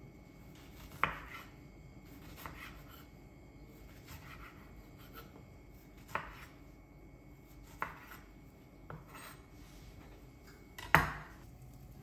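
A knife cutting down onto a cutting board: a handful of separate, unhurried knocks a second or two apart, the loudest near the end.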